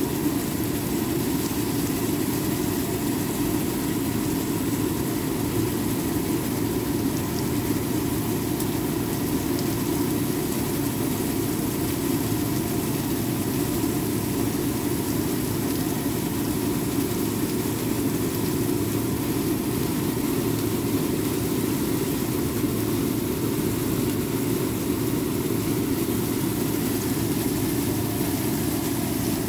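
A steady mechanical drone, as of a fan or motor, runs unchanged throughout, with a faint sizzle from skewered meat cooking on an electric grill plate.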